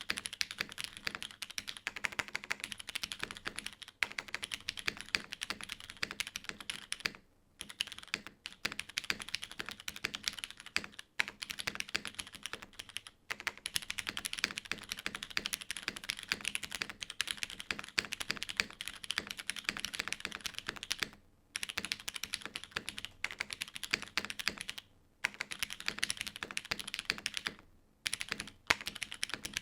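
Continuous fast typing on a mechanical keyboard with unlubed Cherry MX Black linear switches in an aluminium plate, under GMK keycaps, broken by a few short pauses. A faint steady hum runs underneath.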